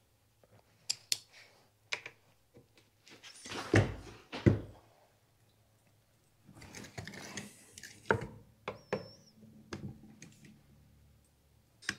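Scattered clicks, knocks and handling noise of a Manitou suspension fork's metal crown and legs being worked by hand to take the crown off, with the loudest knocks about four seconds in.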